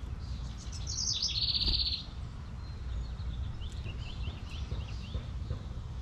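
Small songbirds chirping: a loud, rapid run of high notes about a second in, then a string of short, falling chirps a little later.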